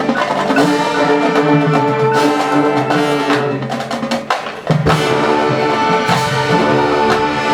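High school marching band playing: held brass and wind chords over drum and mallet percussion hits, with a brief break a little past halfway and then a loud re-entry.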